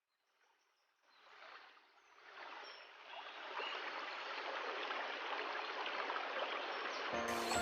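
Rushing water of a waterfall fading in from near silence over the first three seconds, then running steadily. Music comes in over it just before the end.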